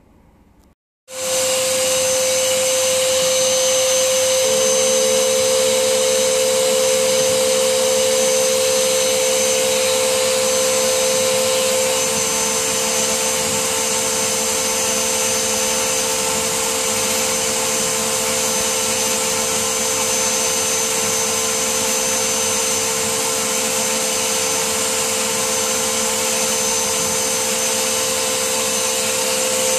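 Vacuum cleaner switched on about a second in and running steadily, its hose nozzle drawing dust out of a PS3 Super Slim's vents. A steady whine in the motor noise drops slightly in pitch a few seconds after start-up.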